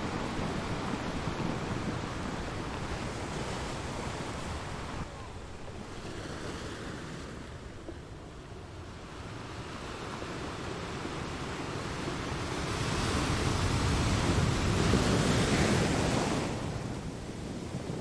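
Ocean surf washing and breaking, with wind on the microphone. The wash eases off around the middle, then a larger surge swells up to its loudest a few seconds before the end and falls back.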